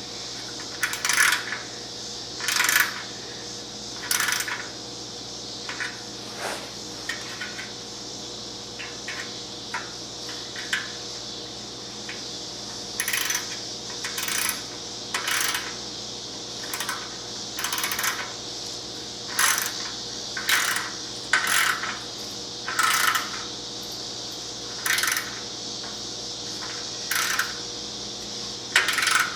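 Short metallic clicks and clinks of a hand tool working the heat-shield clamps on a motorcycle exhaust, one every second or two, over a steady background hiss.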